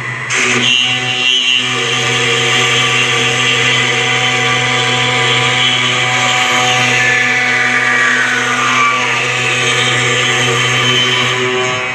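CNC router spindle milling wood: a steady machine whine with several high tones. It starts abruptly, some of the high tones slide down in pitch partway through, and it cuts off near the end.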